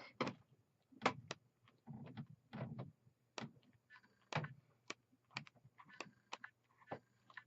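Pages of a patterned scrapbook paper pad being flipped by hand, a sharp paper flap or snap with each page, about one or two a second at an uneven pace.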